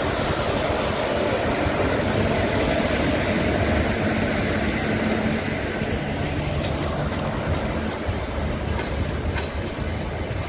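A passenger train of LHB coaches hauled by a WAP-4 electric locomotive passing close by: the wheels make a steady rumble on the track.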